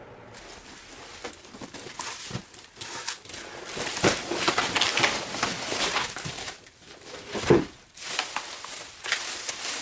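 Bubble-wrapped packages and plastic pouches crinkling and rustling as a cardboard box of them is tipped out and spread across a wooden floor, with one loud thump about seven and a half seconds in.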